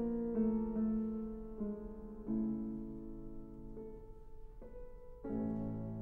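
Slow, gentle piano music: notes and chords struck about once a second, each ringing and fading, softening for a moment a little past the middle.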